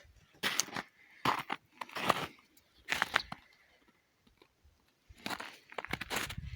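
Crunching footsteps, four steps in the first three seconds, a pause, then denser crunching steps from about five seconds in.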